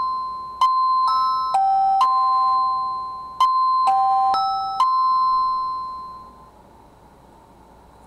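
Secrui wireless doorbell receiver playing its electronic chime melody, the tune assigned to the back-door sensor. It is a run of bell-like notes, each struck sharply and fading, and the last note dies away about six and a half seconds in.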